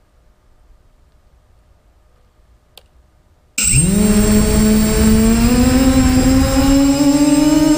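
Quadcopter's electric motors and propellers start suddenly about three and a half seconds in. They run with a loud, steady multi-tone whine that rises slowly in pitch as they throttle up for takeoff. Before that there is only faint background and a single click.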